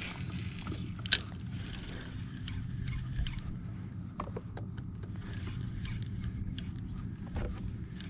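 Bow-mounted electric trolling motor running with a steady low hum, with scattered light clicks and one sharp tap about a second in.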